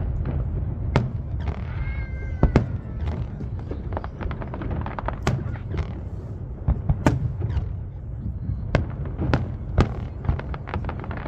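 Fireworks show: an irregular string of sharp bangs and crackles, several a second at times, over a steady low rumble, echoing off nearby buildings. A short wavering whistle rises and falls about two seconds in.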